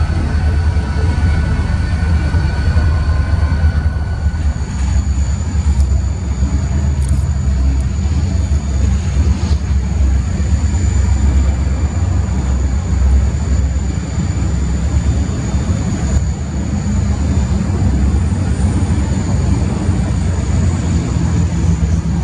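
Diesel-electric freight locomotives running at low speed as they move slowly past, a loud steady low engine rumble with a thin high-pitched whine above it.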